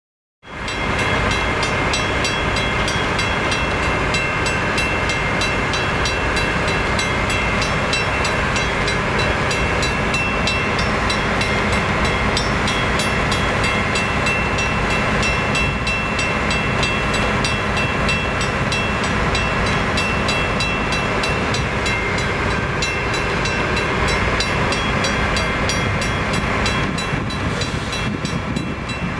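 Diesel freight locomotive's engine running steadily at idle: a constant loud rumble with a few steady high tones over it.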